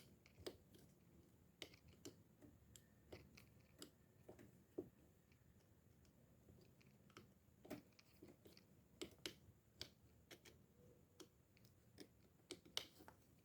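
Faint, irregular small clicks and taps of fishing reel parts and tools being handled during servicing, a few of them louder.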